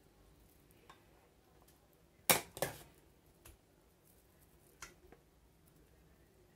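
A metal ladle clinking against a stainless-steel saucepan while thick chocolate cream is scooped out: a few light clicks, the loudest pair about two and a half seconds in.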